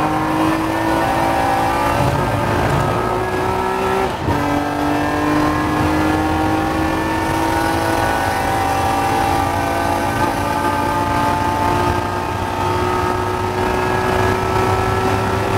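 BMW race car engine heard from inside the cockpit under full acceleration. There is one upshift about four seconds in, with a brief dip, and then the engine note climbs steadily through the long gear.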